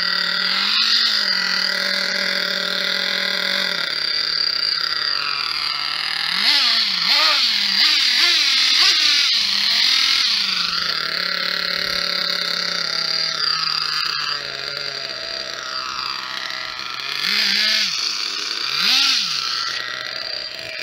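Kyosho Nitro Mad Crusher's small two-stroke nitro glow engine idling steadily, revved in short blips that rise and fall in pitch: once early, about five times in a row around the middle, and twice near the end. It is still warming up on its first run after a carburettor rebuild, with the mixture not yet adjusted.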